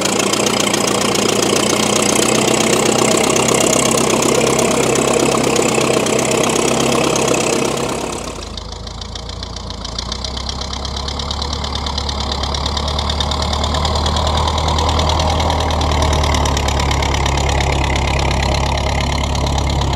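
Four-cylinder engine of a homemade tractor built from a 1927 Ford Model T, running steadily with an even firing beat as it pulls a walking plow through sod. About eight seconds in, the sound turns duller, with a stronger low rumble.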